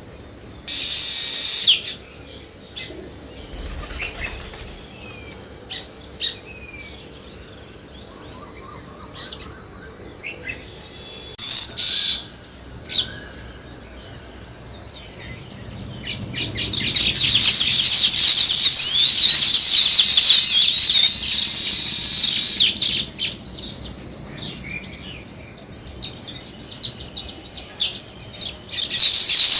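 Weaver birds chirping and chattering: brief loud bursts of high chirps about a second in and again near the middle, then a long, dense chorus of many overlapping chirps for about six seconds in the second half.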